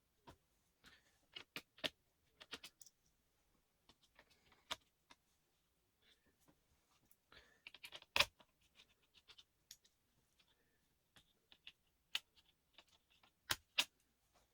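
Scattered clicks, taps and small clinks of hands and tools handling the parts of a Dell Latitude E5470 laptop being taken apart, with a sharper knock about eight seconds in and two more close together near the end.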